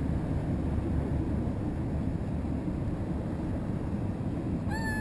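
Steady low rumble of a boat's engine, mixed with wind and water noise. A brief high-pitched chirp sounds near the end.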